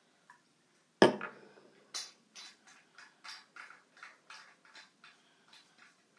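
A cornet being handled as its piston valve is oiled: one sharp knock about a second in, then a run of light metallic clicks, roughly three a second.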